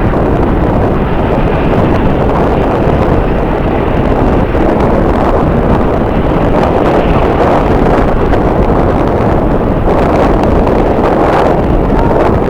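Strong wind buffeting the microphone: a loud, steady rumbling rush with no let-up.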